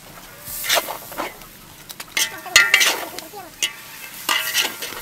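Metal spatulas scraping and tossing noodles in a large wok over sizzling heat, in about four separate stirring strokes.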